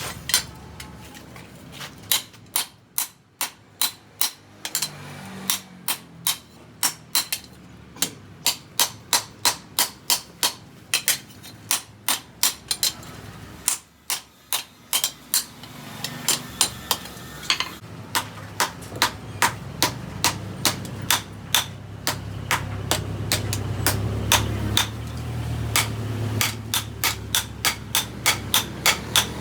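Hammer blows on steel, forging a cleaver blade: steady strikes about twice a second, broken by two short pauses. A low hum rises under the blows in the second half.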